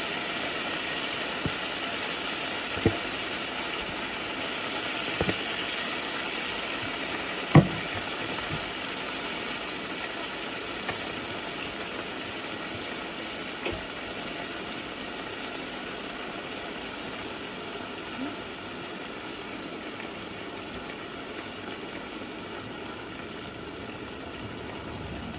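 Steady hiss of food cooking, fading slowly, with a few light knocks; the loudest knock comes about seven and a half seconds in.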